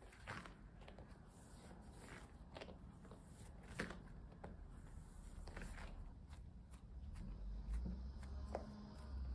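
Pumpkin bread dough being kneaded by hand on a pastry mat: soft squishes and slaps of the dough against the mat, coming at irregular intervals.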